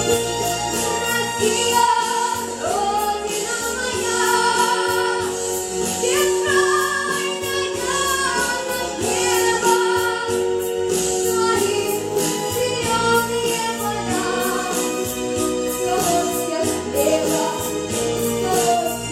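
A pop song performed live: singing over a backing track with a steady beat.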